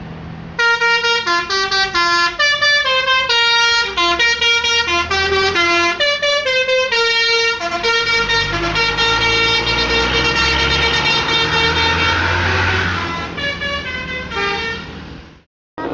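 Tour bus 'basuri' telolet musical horn playing a quick tune of short stepped notes, then longer held chords over the bus engine's low rumble, with a few short notes again near the end. The sound cuts off abruptly just before the end.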